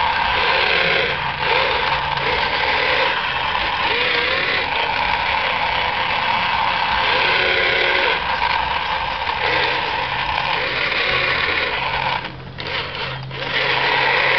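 Small electric gear motors of a radio-controlled wheeled excavator whining in short spurts as the boom, arm and bucket move over a sand pile. The whine dips briefly about twelve seconds in.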